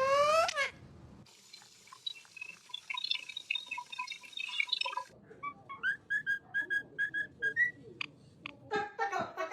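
Pet parrot whistling: a loud, quick rising whistle, then a run of short whistled notes at about three a second, ending on a rising note.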